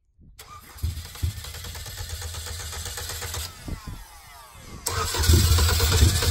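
Pontiac's Ecotec four-cylinder engine being cranked on ether, sputtering into life with an uneven beat; it dies away about three and a half seconds in, then after a click it is cranked again and catches, running louder near the end.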